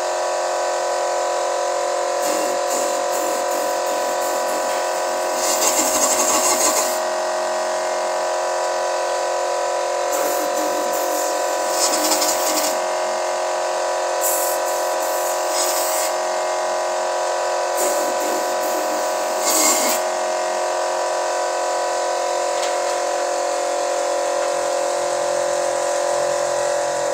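A steady, high-pitched mechanical drone from the engine bay during an engine carbon-cleaning job. Four times it is joined by a hiss of blowing air lasting a second or two.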